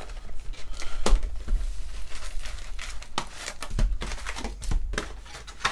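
A sealed Panini Prizm baseball card box being unwrapped and opened: plastic wrap crinkling and tearing, with a few sharp clicks from the cardboard box.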